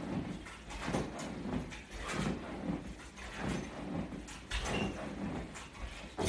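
A man doing sit-ups on an exercise mat: rhythmic hard breathing and clothing rustle, coming in short pairs of rushing sounds about every second and a quarter, one pair per sit-up.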